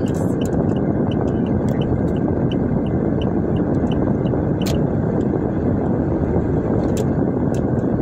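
Steady road and engine noise inside a moving car's cabin. A faint regular high ticking, about three a second, runs through the first half, and there are two sharp clicks.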